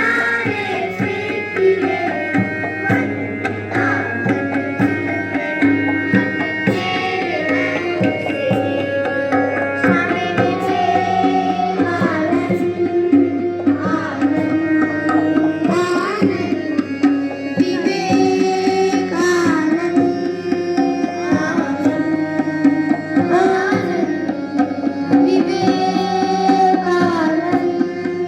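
Indian-style music with tabla drumming under a gliding melodic line.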